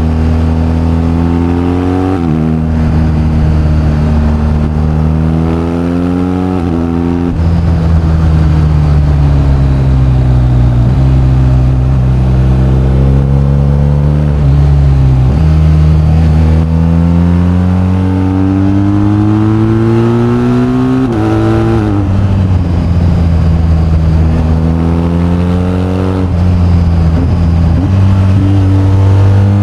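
BMW R1250GS's boxer-twin engine pulling through the gears under acceleration: its pitch rises, then drops sharply at each upshift, about five times, with a long easing-off and slow build in between.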